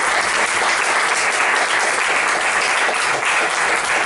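Audience applauding steadily, the thanks-for-the-talk applause at the close of a lecture.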